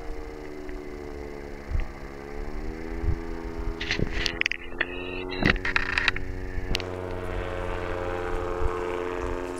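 Powered paraglider's backpack engine and propeller droning overhead, its pitch dipping and rising again about two to three seconds in. A few sharp clicks break in near the middle.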